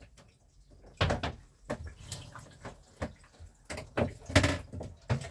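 Irregular knocks and clunks from handling a portable washing machine's plastic tub and lid, the first loud one about a second in and several more close together near the end.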